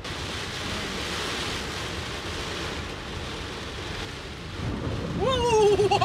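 Torrential rain drumming on a car in a downpour, swelling about four and a half seconds in as water splashes up against the car. A startled, wavering cry comes near the end.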